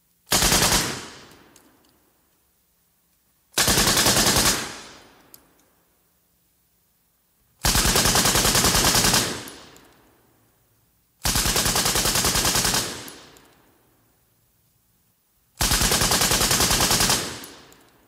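Machine gun firing five bursts of rapid automatic fire a few seconds apart. The first burst is short and the later ones run about one to one and a half seconds each, every burst trailing off in a fading echo.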